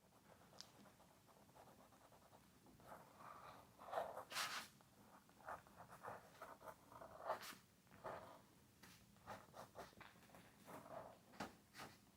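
Faint scratching of a drawing tool on sketchbook paper as small berry circles are sketched: many short, irregular strokes that begin about three seconds in.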